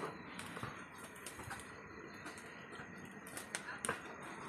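Wood fire crackling under a large cooking pot: irregular small pops and snaps over a faint steady hiss, with a few sharper snaps near the end.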